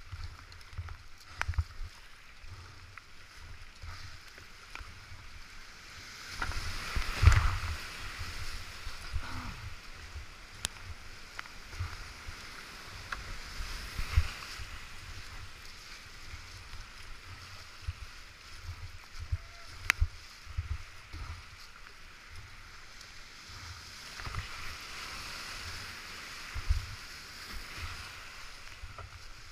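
Whitewater rushing around a plastic creek kayak, with paddle blades splashing in and out of the water and low buffeting thumps on a GoPro microphone. The water gets louder for a stretch about seven seconds in as the boat drops through a rapid.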